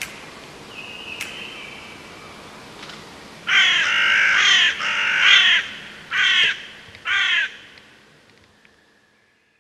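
A crow cawing: five harsh caws in a row starting about a third of the way in, the first one longest. The background fades away to silence near the end.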